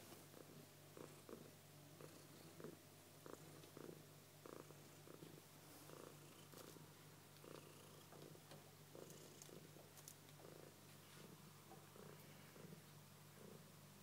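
Faint purring of a domestic cat: soft, rhythmic pulses about two or three a second over a steady low hum.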